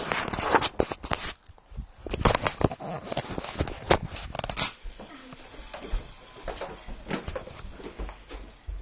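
Close rustling and knocking of a handheld phone being handled and rubbed over bedding, with a few short whimpering sounds mixed in.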